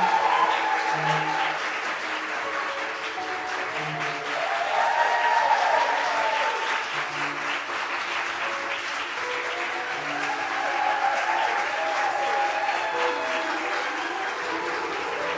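Audience applauding over music, with a low bass note about every three seconds.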